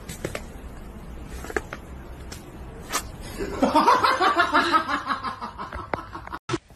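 A person laughing in a quick run of giggles, starting about three and a half seconds in and fading out after about two seconds. A few light clicks come before it.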